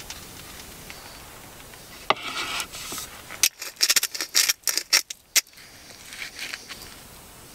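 Hand-twisted spice grinder cranked over a bowl, a quick run of about eight sharp crunching rasps lasting about two seconds. Just before it, a softer scraping on the cutting board.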